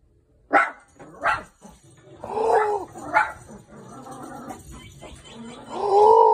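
Small dog barking: three short, sharp barks and two longer, drawn-out calls, the last near the end.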